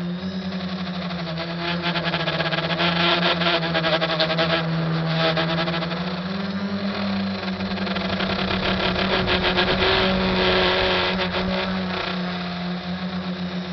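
SK450 quadcopter's electric motors and propellers whirring steadily in flight, the pitch stepping up and down several times as the throttle changes.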